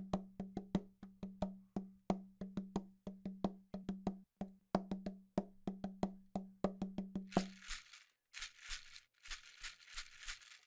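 Percussion-led background music: rapid sharp clicking strikes over a held low note, and about eight seconds in the strikes and note stop, giving way to bursts of hissing rattle.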